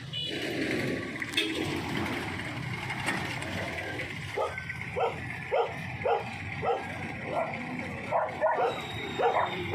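A dog barking over and over, about two barks a second, starting about four seconds in, over a steady street hum.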